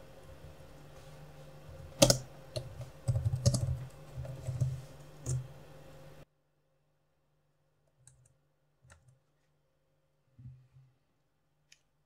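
Typing on a computer keyboard: a run of key clicks in the first half, the loudest about two seconds in, over a faint steady hum that cuts off about six seconds in. A few faint single clicks follow.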